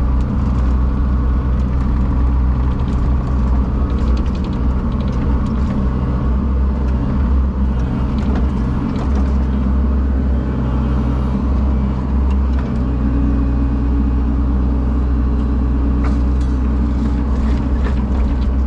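A large engine running steadily at constant speed, with a few light knocks and clanks over it.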